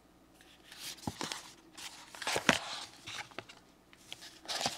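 Small cardboard product boxes being handled on a table and their lids flipped open: scattered taps, scrapes and rustles, with the loudest knock about two and a half seconds in.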